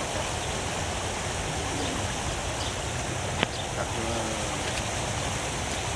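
Steady rush of splashing water from a fountain, with faint voices in the background and a single sharp click about three and a half seconds in.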